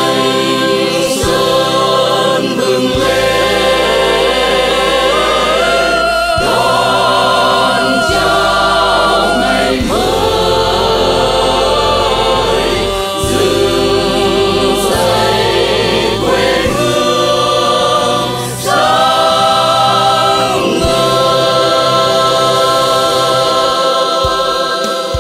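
A choir singing long held notes with vibrato over an instrumental backing with a bass line.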